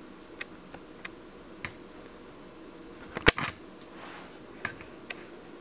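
A few sharp, scattered clicks in a quiet room, the loudest a quick cluster about three seconds in.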